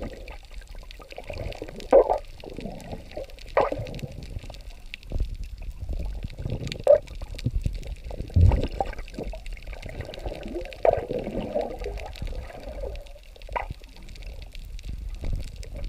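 Water sloshing and bubbling, heard muffled through a camera held underwater, with irregular louder surges every few seconds.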